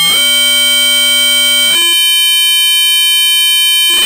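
Audio output of an NE555 timer chip in a miswired astable circuit, with pin 6 tied to pin 7 instead of pin 2, giving a loud electronic buzzing tone. The tone holds steady and then jumps abruptly to a different pitch and timbre, twice. The miswiring makes the chip put out a complex, chaotic signal in place of a fixed-frequency square wave.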